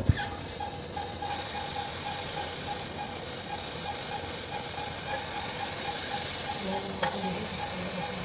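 Surgical suction cannula hissing steadily as it draws saline irrigation and blood out of a burr hole while a chronic subdural haematoma is washed out. A faint, quick pulsing tone runs underneath, and there is a click at the start and another near the end.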